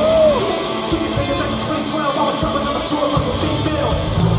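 Live rock band playing with a singer, amplified through an arena PA and recorded from the audience, with a steady drum beat.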